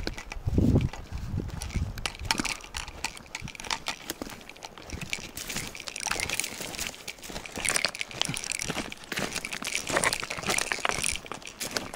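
Footsteps crunching and scraping on loose broken rock and gravel, an uneven run of crackling steps, with a low dull thump about half a second in.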